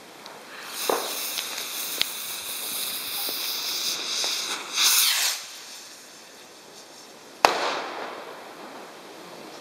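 Weco 'Burst' New Year's fireworks rocket: a rushing hiss for about five seconds as it launches and climbs, then a single sharp bang with a trailing echo as its charge bursts into red and silver stars.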